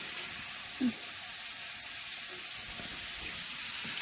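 Steady sizzling hiss of food frying in a pan, with one brief low sound just under a second in.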